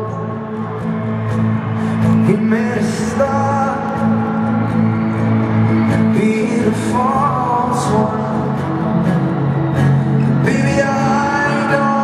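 Live pop concert in an arena: male vocals singing a slow song over band accompaniment with held chords.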